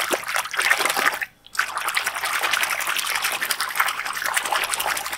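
Muddy water sloshing and splashing in a plastic tub as a hand rubs a toy car clean under the surface, with a short break about a second and a half in.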